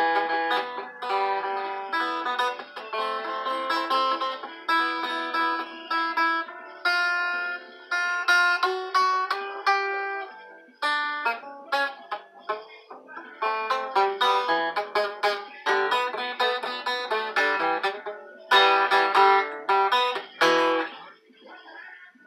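Acoustic guitar played: a run of picked notes and strummed chords, each ringing out, which stops about a second before the end.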